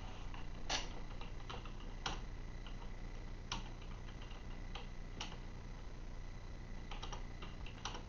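A person hiccupping: short, sharp hiccups about every one and a half seconds, with fainter clicks in between.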